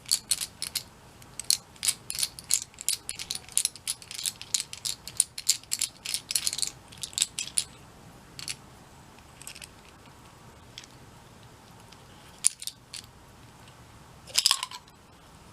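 Quick, irregular small metal clicks and clinks of a vintage screwdriver being handled and taken apart into its separate pieces: dense for the first seven seconds or so, then only a few, with a short burst near the end.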